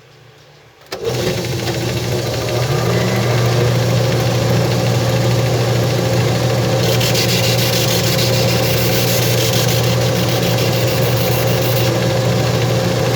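Electric grinder switched on about a second in, whining up to speed and then running steadily. From about halfway through, a harsher hiss joins it for several seconds as the spinning wheel grinds the shoe.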